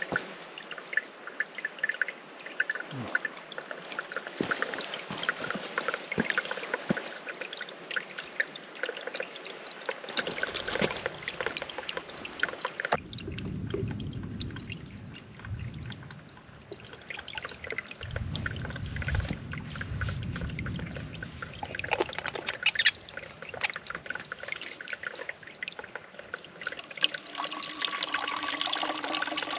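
Water of a mountain stream running and trickling over rocks, changing abruptly a few times as if in separate takes.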